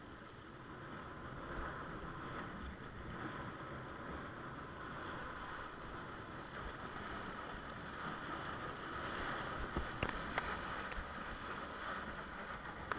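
Water rushing past a windsurf longboard under sail: a steady hiss, with a few sharp clicks about ten seconds in.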